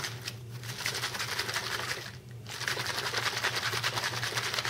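Mighty Mixer plastic shaker bottle shaken hard by hand, the pancake batter inside sloshing and knocking in a fast, even rhythm, with a brief pause about two seconds in.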